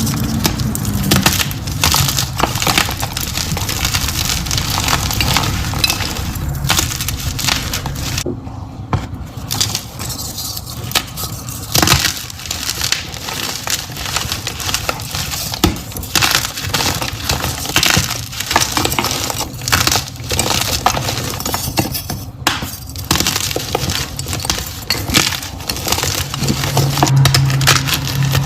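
Gym chalk being crushed into crunchy crumbles: dense, crisp crunching and crackling, with short pauses about eight and twenty-two seconds in.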